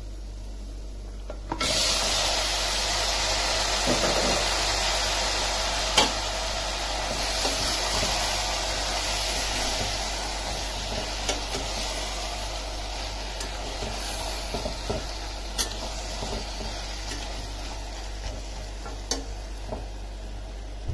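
Raw mutton pieces sizzling as they hit hot oil and onion-spice masala in a pressure cooker. The sizzle starts suddenly about a second and a half in and slowly dies down as the meat is stirred, with a few sharp clinks of the metal utensil against the pot.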